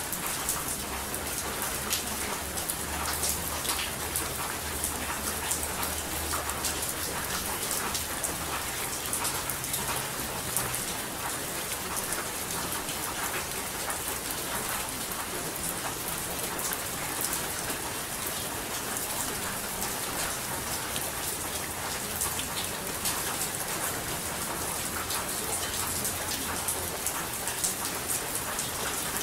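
Steady rain falling on a surface, an even hiss dotted with many small drop ticks.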